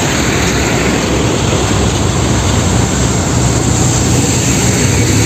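Yellow Tata heavy dump trucks driving past in a convoy: a steady rumble of diesel engines and tyre noise on the road.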